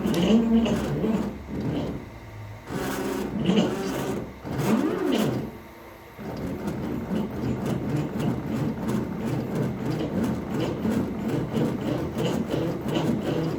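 CNC machine running, its motors whining with a pitch that sweeps up and down as the head speeds up and slows, with a short lull about six seconds in, then a steady pulsing run.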